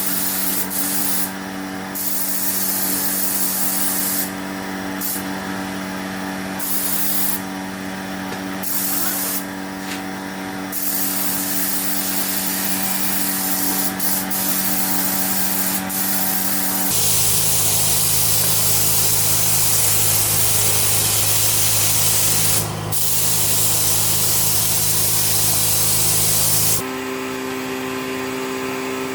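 Compressed-air hiss from an air spray gun, switched on and off in short blasts during the first ten seconds and then held for longer stretches, over the steady hum of a motor, likely the air compressor.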